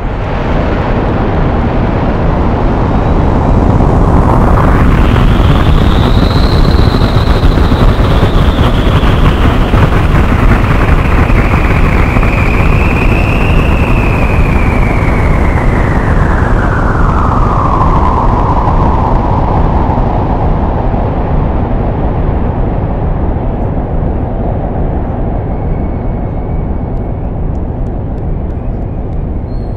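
Designed volcanic-eruption sound effect for the show: a loud, deep, continuous rumble with a whooshing sweep that climbs about four seconds in, wavers, then slowly sinks back down into the rumble.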